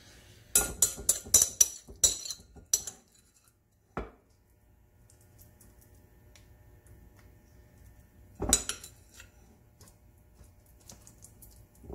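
A metal spoon clinking and scraping against a glass mixing bowl and the air fryer basket: a quick run of sharp clinks in the first few seconds, a single knock at about four seconds, and another short burst of clinks a little past the middle.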